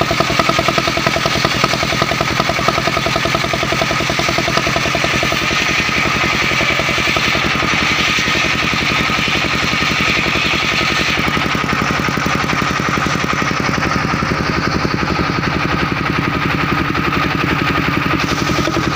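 Engine-driven mobile circular sawmill running at speed, the engine pulsing rapidly under a steady high whine from the blade. The brighter, hissing part of the sound falls away about eleven seconds in.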